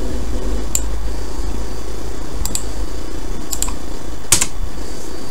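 About six sharp computer mouse clicks and keyboard keystrokes, scattered, the loudest a little past four seconds in, over a steady low background hum.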